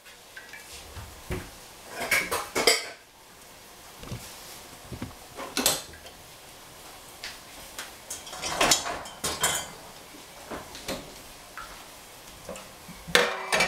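Kitchen utensils and cookware being handled: short clinks and clatters of metal and dishware, coming in about four brief clusters a few seconds apart.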